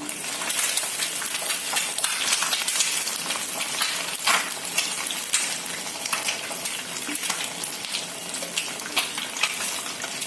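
Eggs scrambling in hot oil in a pan, sizzling steadily, while a spatula stirs and scrapes them with frequent sharp clicks against the pan.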